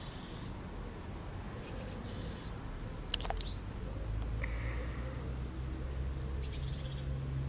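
Birds calling: short, high chirps every second or two, with a quick gliding call about three seconds in, over a steady low rumble.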